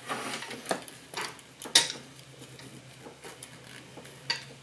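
Scattered small metallic clicks and clinks of a lock washer and nut being fitted by hand onto the starter generator's tension bolt, the loudest a little under two seconds in.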